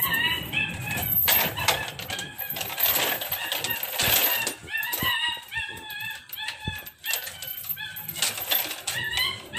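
A metal chain clinking and rattling on a wooden deck as a chained German Shepherd moves about, with many short high-pitched calls sounding over it in quick runs.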